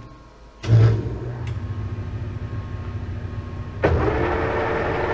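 Metal lathe starting: its motor comes on suddenly with a steady low hum under a second in. Near four seconds in, a second sharp onset comes as the spindle and four-jaw chuck start turning, and the running gets louder and fuller.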